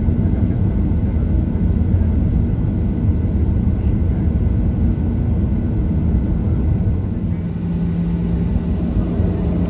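Boeing 737-800 cabin noise while taxiing, heard from a seat over the wing: a steady low rumble of the CFM56 engines at taxi power. A steady low hum joins about seven seconds in.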